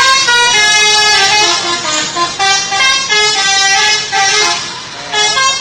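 Bus 'telolet' musical air horn playing a tune, its horn tones stepping quickly from note to note, with a short dip a little before the end before it sounds again.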